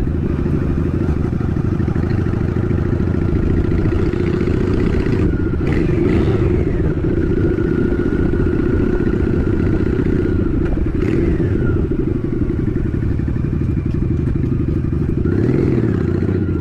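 Honda Shadow 750 ACE's V-twin engine running steadily while riding. The engine note rises and falls briefly a few times.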